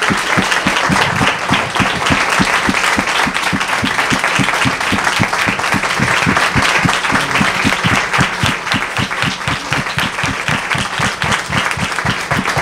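Audience applauding: loud, steady clapping from a large crowd, held throughout as a standing ovation.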